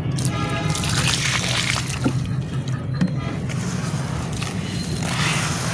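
Water poured onto dry charcoal ash, then hands sloshing and squishing the wet ash paste, over a steady low hum.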